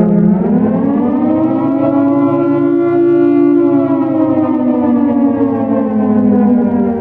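Modern air raid siren wailing, its recording pitched down: the tone dips briefly, rises for about three seconds, then slowly falls again.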